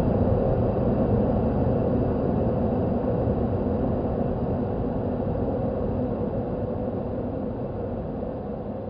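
Horror-style howling wind sound effect: a steady low rushing of wind with a faint hollow tone, slowly fading out.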